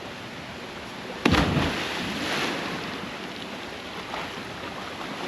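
A person plunges into a waterfall pool about a second in: a sudden loud splash that washes away over a second or so. Under it runs the waterfall's steady rush.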